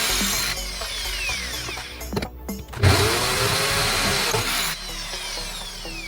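Small electric power-tool motor spinning up, running and winding down twice, its pitch rising, holding and falling each time, over background music.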